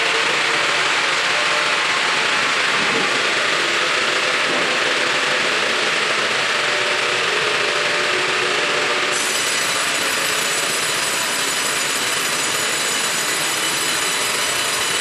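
Vertical sawmill running and cutting wood: a steady, harsh mechanical noise. About nine seconds in, a set of high, steady whining tones joins it.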